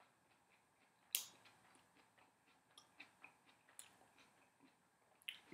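Faint chewing of a mouthful of sub sandwich: scattered small mouth clicks, with one sharper click about a second in.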